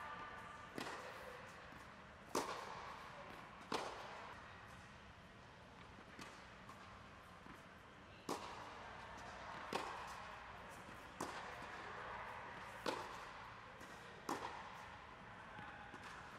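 Tennis balls struck with a racket and bouncing on a hard court: a sharp pop every one to two seconds, each with a short echo, over a steady low background hum.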